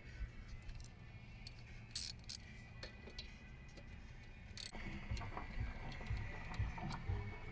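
Faint, scattered metallic clinks and taps of hand tools and brake hardware being handled. About halfway through, music with a low, regular beat comes in quietly.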